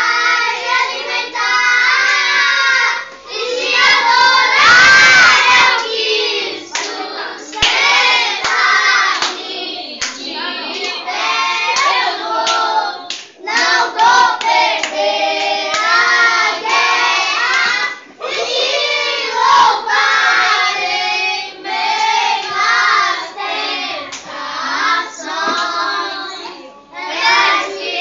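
A group of children and a young woman singing a song together, with some hand clapping along.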